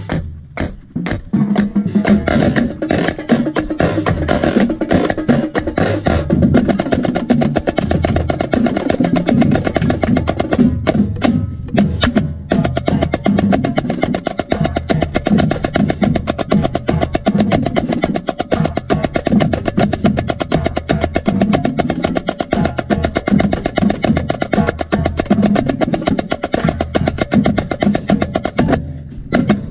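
Marching snare drum played close up in a fast cadence: dense, rapid strokes and rolls, with a short break about halfway.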